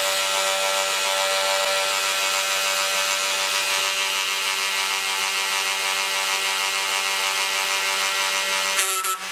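Handheld electric rotary carving tool running steadily at high speed, a steady whine with its bit grinding into the wood. The sound breaks off with a couple of clicks near the end.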